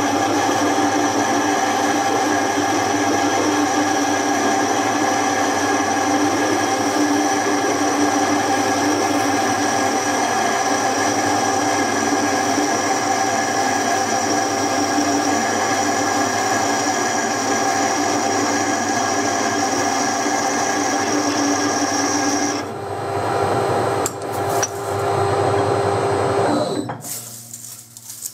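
Metal lathe running and cutting a small spacer, with a steady whine of several even tones. About 23 seconds in the sound changes, and it dies away shortly before the end.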